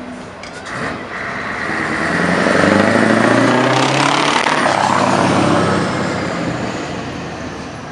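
Scania 143H truck's V8 diesel with a loud custom exhaust, driving past under power. The engine note rises and swells as the truck comes close, is loudest midway, then drops in pitch and fades as it pulls away.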